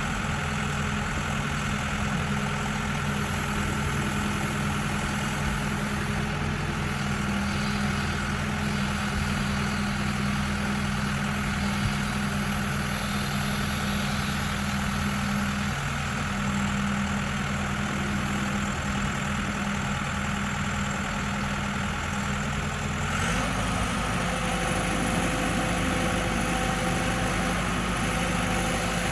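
New Holland 575E backhoe loader's diesel engine idling steadily. About three-quarters of the way through, its note shifts abruptly to a slightly different engine speed and holds steady there.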